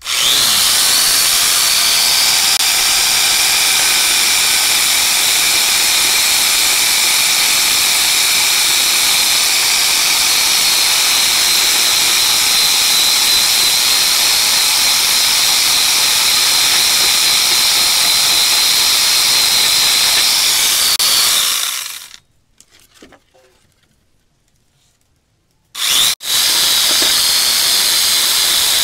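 Angle grinder fitted with a chainsaw converter attachment, running at full speed with a steady high whine and chain rattle. It is switched off about 21 seconds in, winds down, and is started again about four seconds later.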